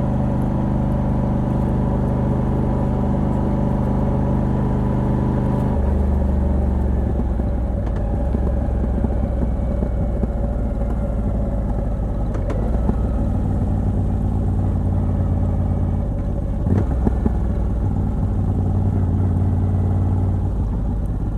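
Moto Guzzi V85TT's air-cooled transverse V-twin on its stock exhaust with a decat pipe, running steadily; about six seconds in its note drops to a lower, deeper pitch and stays there.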